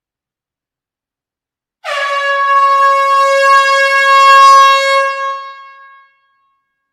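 A single loud air horn blast in a small hall: one held, brassy note with many overtones, starting about two seconds in, steady for about three seconds, then fading away.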